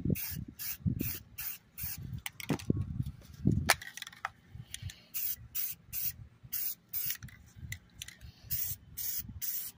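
Aerosol spray paint can sprayed in quick short bursts, about two a second, hissing paint through a mesh stencil onto a rifle.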